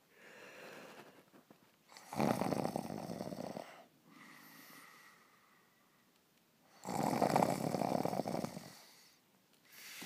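A man snoring in his sleep: two long snores, each about a second and a half, roughly five seconds apart, with quieter breaths between them.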